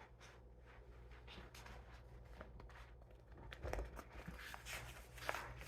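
Faint rustling and light clicks of a paper picture book being handled, its pages turned. There is a soft thump about three and a half seconds in and a sharper click near the end.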